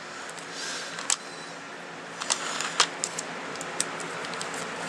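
Scattered sharp clicks and taps as an HP G60 laptop is handled before its keyboard is removed, over a faint steady hum.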